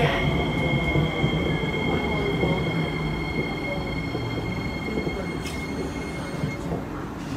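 Inside an SMRT C151C metro train slowing at a platform: the rumble of wheels and motors eases off, under steady high whine tones that cut out about six and a half seconds in. A short hiss comes about five and a half seconds in.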